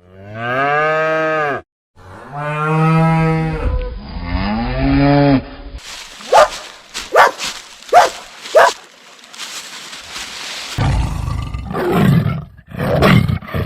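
Cattle mooing: three long, drawn-out moos in the first six seconds, followed by a run of short, sharp calls roughly every half second to second and two more calls near the end.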